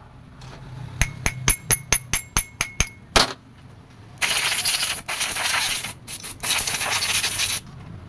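About ten quick, ringing metal clinks as the motorcycle monoshock's shaft parts are handled. About four seconds in, a compressed-air blow gun starts hissing in loud blasts, broken briefly twice, blowing the shock shaft and piston assembly clean.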